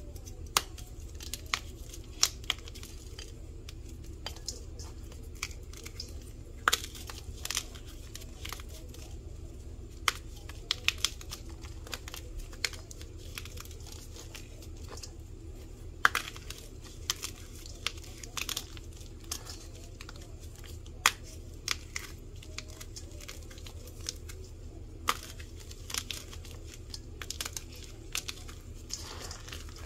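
Hands crushing dry, crunchy dyed powder blocks in a bowl: irregular sharp crunches and crumbly crackles as the blocks break apart and the fragments are squeezed, over a steady low hum.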